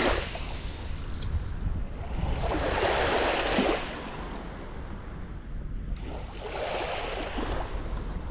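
Small waves lapping onto a sandy beach, each wash swelling and fading about every three to four seconds, over a low rumble of wind on the microphone.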